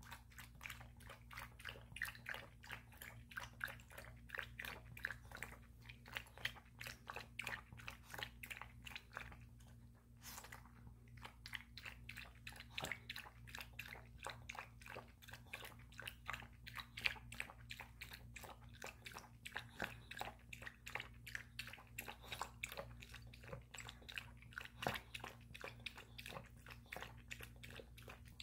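Maltese dog eating brown rice soup from a plate: a quick run of wet lapping and chewing smacks, several a second, with a short pause about ten seconds in.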